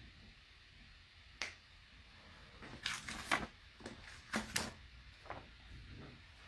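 A scatter of short, sharp clicks and knocks over faint room noise: one about a second and a half in, a quick cluster through the middle, then a few fainter ones.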